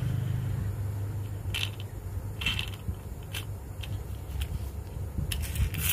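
Hard plastic toy motorcycle being handled and turned over in the hands: a few short plastic clicks and scrapes, several of them bunched near the end, over a steady low hum.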